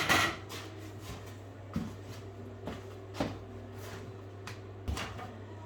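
Wallpaper and tools being handled on a pasting table: a handful of separate light knocks and rustles, spread out over a few seconds, over a steady low hum.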